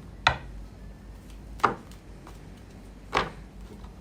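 Three sharp taps on a tabletop, about a second and a half apart.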